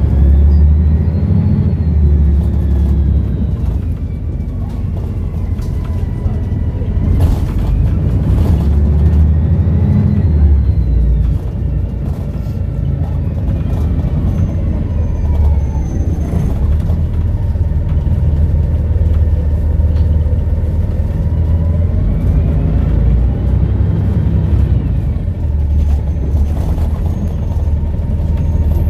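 Volvo B7RLE bus's six-cylinder diesel engine running under load, with its turbocharger whistling loudly, the whistle rising and falling in pitch several times as the bus pulls away and eases off.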